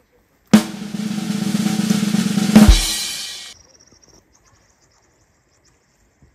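A stone skimmed onto a frozen lake: it strikes the ice with a sharp crack about half a second in, then skitters across with a rapid rattling, ringing chatter for about three seconds, with a louder knock near the end. It dies away into a faint high whistle from the ice.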